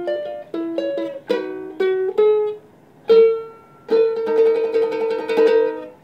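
Ukulele played solo as the closing bars of a song: a quick run of picked single notes, a short pause, one more note, then a final chord that rings for about two seconds and stops.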